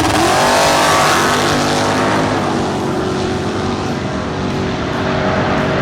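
Drag racing car's engine running at high revs, its pitch climbing over about the first second and then holding fairly steady.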